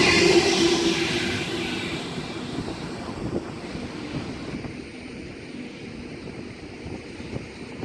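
Passing train receding, its noise fading steadily over about five seconds to a low background hum.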